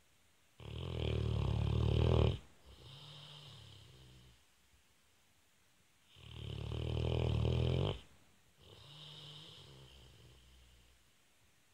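Sleeping pet snoring: twice, a loud rasping in-breath of about two seconds, each followed by a softer, lower out-breath.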